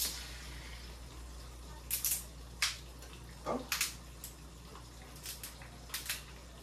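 A kitchen utensil jabbing and scraping at a frozen drink in a bottle to break it loose: a string of short, sharp scrapes and clicks at uneven intervals, over a low steady hum.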